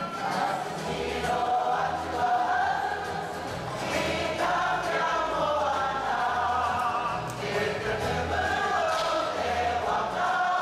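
Māori kapa haka group of elders, men and women, singing a waiata together in unison, with wavering melody lines held over a steady low pulse.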